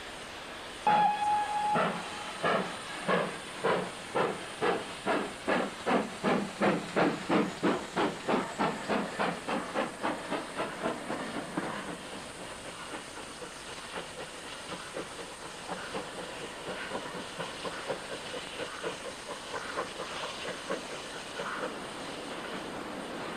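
Steam locomotive, the GWR Castle-class 4-6-0 Nunney Castle, sounds a short whistle and pulls away. Its exhaust beats are loud and slow at first, then quicken as it gathers speed, with a hiss of steam. After about twelve seconds the beats fade into a steadier hiss and rumble as it draws away.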